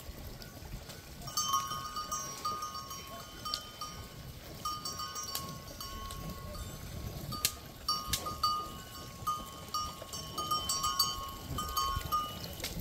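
Cowbells clanking and ringing irregularly as cows walk, starting about a second in, with a few sharper strikes near the middle.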